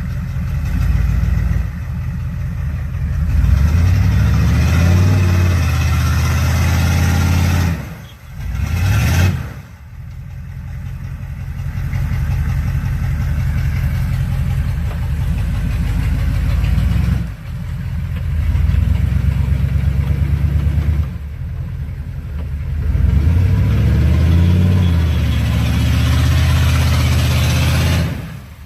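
Off-road 4x4 engine revved hard again and again, its pitch climbing and falling, with short let-offs between pushes as the vehicle fights to climb out of a deep mud hole.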